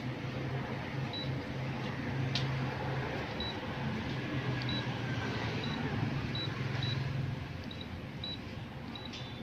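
Short high beeps from a Canon copier's touchscreen as on-screen keys are pressed, coming at irregular intervals, about eight in all. Under them runs a steady low hum that drops away about three-quarters of the way through.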